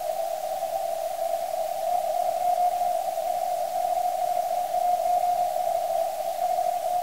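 Shortwave receiver audio on the 28 MHz CW band: steady band hiss squeezed through a narrow CW filter into a hollow whoosh around one pitch. The weak Morse signal of the Cyprus station 5B4AOF rises faintly out of the noise now and then.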